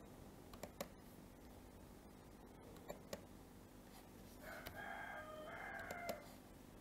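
Computer mouse clicks, some in quick pairs. About four and a half seconds in comes a faint call of a few held tones, lasting nearly two seconds.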